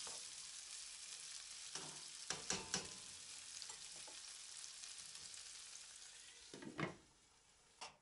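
Onion, tomato, garlic and black olives sizzling steadily in oil in a nonstick frying pan over medium heat. A slotted spatula stirs them, giving a few knocks and scrapes against the pan about two seconds in. The sizzle stops near the end.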